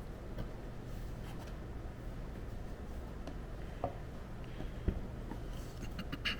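Paper and cardboard packaging being handled: light rubbing and rustling with a few small clicks and knocks, over a steady low hum.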